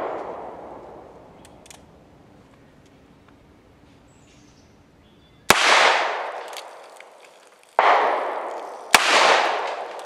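Colt Bisley single-action revolver in .38 Special firing. The echo of a shot fades over the first couple of seconds, then after a lull come three shots, about five and a half, eight and nine seconds in, each with a long echoing decay.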